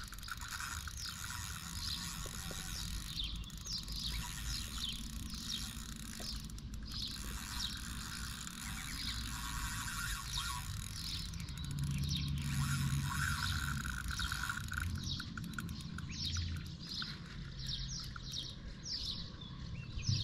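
Fishing reel ratcheting and clicking while a hooked fish is played on a bent rod, the line being wound in and taken against the drag.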